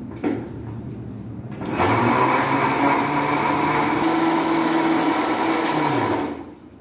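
Electric mixer grinder with a steel jar: a click, then the motor starts about two seconds in and runs steadily for about four seconds. Near the end it is switched off and winds down with a falling hum.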